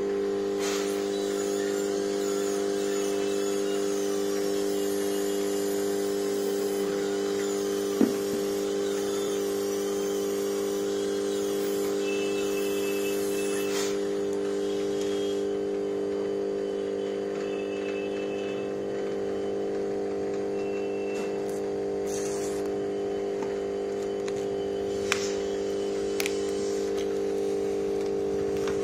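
A steady hum of several fixed low pitches, unchanging throughout, with a sharp click about eight seconds in and two fainter clicks near the end.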